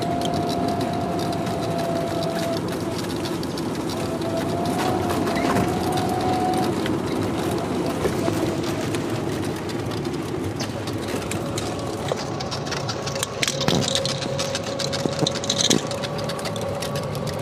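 Golf cart driving along a paved road: a steady motor hum that shifts a little in pitch about five seconds in, over road noise, with a few sharp knocks near the end.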